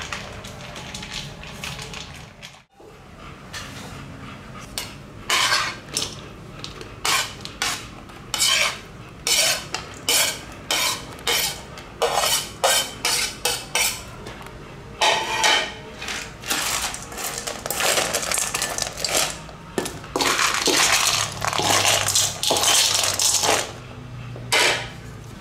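A metal spoon clinking and scraping against stainless-steel bowls as dry kibble and meat chunks are spooned in. It comes as a string of sharp clinks, with a denser run of rapid clattering as the food is stirred near the end.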